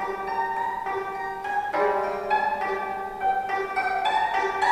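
25-string gayageum being played solo, its silk-type strings plucked one note at a time, each note ringing on under the next so that the tones overlap.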